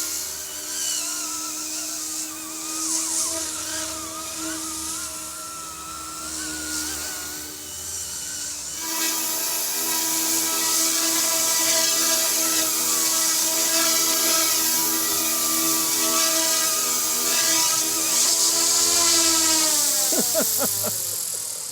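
Electric motors and rotors of an Eachine E250 AH-64 Apache RC helicopter whining steadily in flight, the pitch wavering with the throttle. Near the end the whine falls steeply as the rotors spin down.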